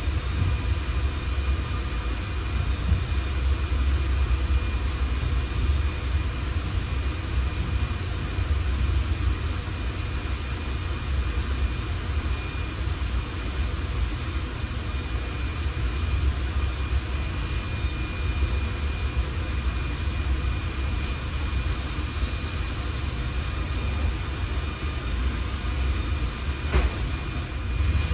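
Ride noise inside a passenger coach of a suburban train hauled by an E464 electric locomotive: a steady low rumble from running on the rails, with hiss and a faint steady high whine over it.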